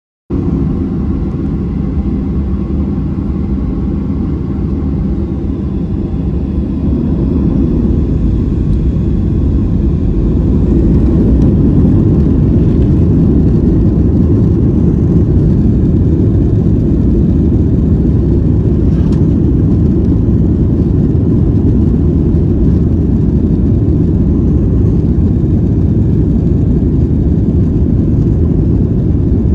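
Boeing 737 jet engine noise heard inside the passenger cabin, a steady low rumble with faint tones. About a third of the way in it grows louder and rougher as the engines spool up, and it then stays at that higher level.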